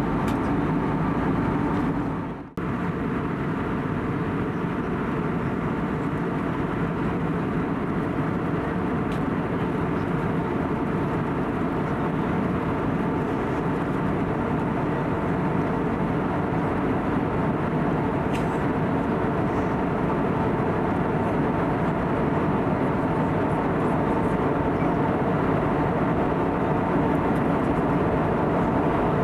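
Steady cabin noise inside an Airbus A320neo in flight: a constant rush of airflow with the hum of its CFM LEAP-1A engines, carrying a few faint steady tones. About two and a half seconds in there is a brief dropout.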